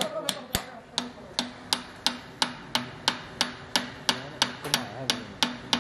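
A steel hammer tapping a timing gear onto its shaft in a Massey Ferguson tractor engine's timing case, sharp metal-on-metal knocks in a steady rhythm of about three a second, each with a short ring.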